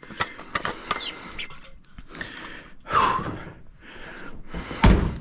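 A man breathing hard with the effort of the work, in loud, rough breaths, with a sharp knock just before the end.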